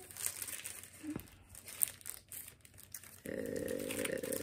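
Gift packaging crinkling and rustling as a small wrapped item is pulled out by hand, in short irregular bursts. About three seconds in, a low steady vocal sound, like a murmur or hum, starts under it.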